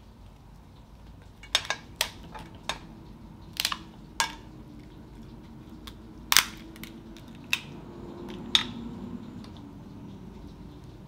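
Dungeness crab leg shells cracking and snapping as they are broken apart by hand: a string of sharp, separate cracks, the loudest about six seconds in.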